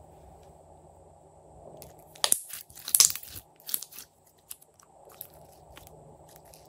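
Plastic sequin confetti poured into a tray of slime, a burst of crackly clicking and rattling about two seconds in that lasts about a second and a half, followed by a few scattered soft clicks as the slime is handled.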